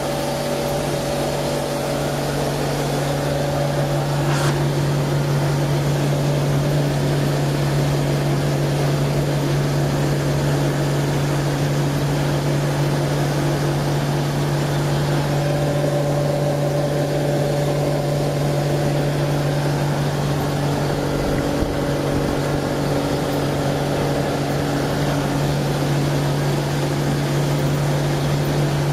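The straight-six engine of a 1941 Chevrolet 1½-ton dump truck running steadily as the truck drives along the road, heard from inside the cab.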